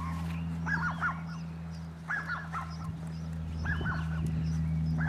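Birds calling, fowl or geese by the sound: short honking calls in twos and threes, repeated about every second and a half, over a steady low hum.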